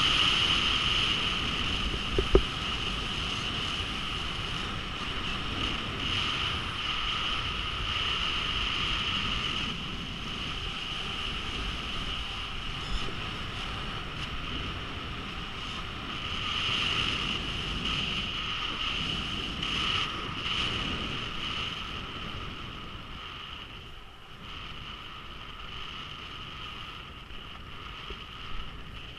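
Skis sliding down a groomed snow run, with wind rushing over the camera microphone and a steady high whistle on top. A couple of sharp clicks come about two seconds in.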